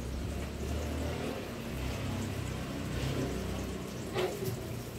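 Close wet chewing of juicy rambutan flesh, with a low steady hum underneath and one sharp click about four seconds in.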